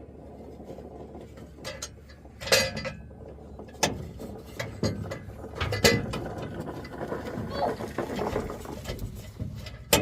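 Irregular sharp clicks and knocks, with a stretch of busy mechanical rattling in the second half, as of tools and parts being handled during repair work.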